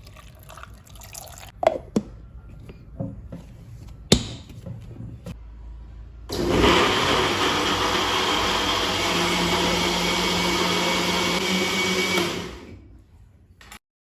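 Cosmos 282 P electric blender switching on about six seconds in, running steadily for about six seconds, then winding down. Before it starts there are a few clicks and knocks, like the jar and lid being handled.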